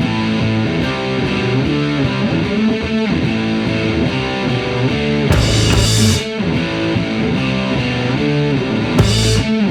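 Rock music with distorted electric guitar, with cymbal crashes about five seconds in and again near the end.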